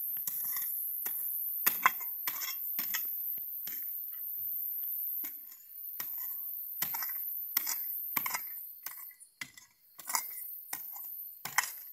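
Small steel digging shovel repeatedly stabbing into hard, stony soil, about one to two strikes a second, the blade clinking and scraping against stones.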